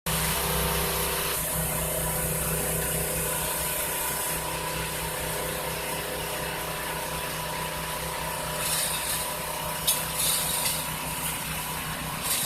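A small engine running steadily, with a few short knocks and rattles about nine to eleven seconds in.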